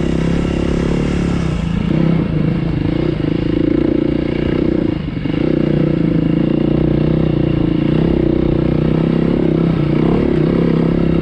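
Beta 390 RR-S four-stroke single-cylinder enduro motorcycle engine running under steady throttle while the bike is ridden, heard from on the bike. The engine briefly drops about five seconds in, then picks back up.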